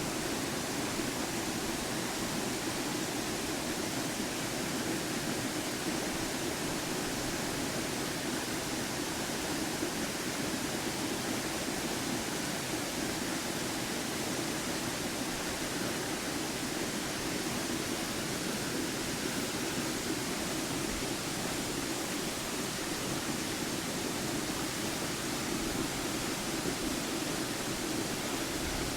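Waterfall rushing with a steady, unbroken roar of falling water.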